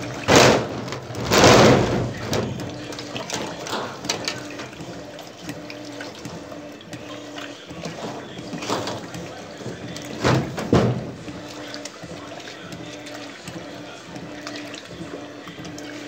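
Electrolux Turbo LT12F 12 kg top-loading washing machine agitating a load in water: wet fabric and water churning and sloshing over a steady motor hum, with louder surges about a second and a half in and again around ten to eleven seconds.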